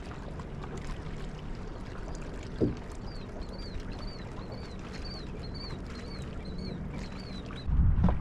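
A bird calls a run of short, high chirps, each rising and falling, about two a second for some five seconds, over a steady low hum of the boat on the water. One knock comes a few seconds in, and near the end a loud low rumble of wind on the microphone sets in.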